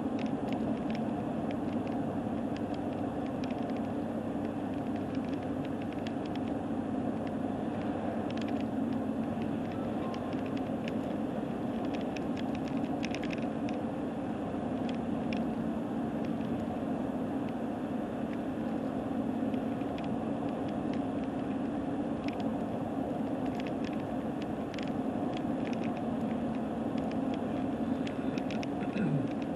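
Road and engine noise inside a moving car: a steady low rumble, with frequent short rattling clicks that the driver expects from the camera on the rough road.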